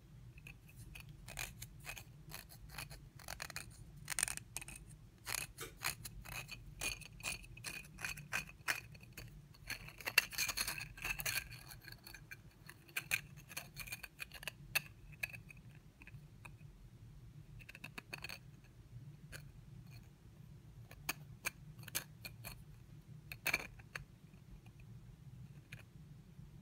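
3D-printed plastic ring with nested inner rings being turned in the hand: irregular plastic-on-plastic clicks and scraping, with a faint squeak in the rubbing, over a steady low hum.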